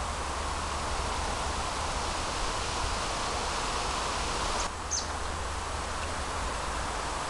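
Steady rushing of a river's flowing water, with a low wind rumble on the microphone. Two brief high chirps sound about five seconds in.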